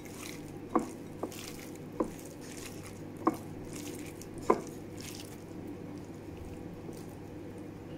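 A hand squeezing and mixing oily sliced red onion and crushed chilli in a glass bowl: wet squishing, with five sharp taps about a second apart. The handling noise dies away after about five seconds, leaving a steady low hum.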